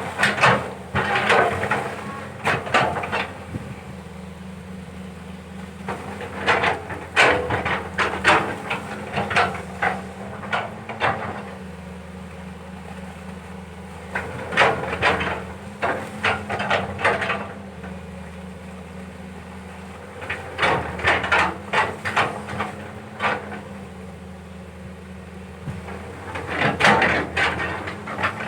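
CAT 320 hydraulic excavator running steadily while digging, with bursts of clanking and knocking from the bucket and its linkage every six or seven seconds, five bursts in all.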